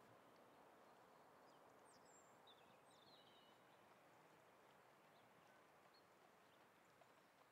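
Near silence: faint outdoor background hiss, with a few brief, high bird chirps about two to three seconds in.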